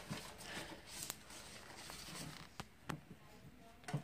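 Faint rustling with a few light clicks and taps, the sound of things being handled close by.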